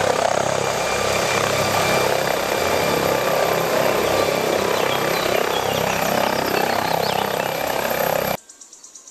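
MD Explorer helicopter hovering low, its turbine engines and main rotor running with a steady beating whine. It cuts off suddenly near the end.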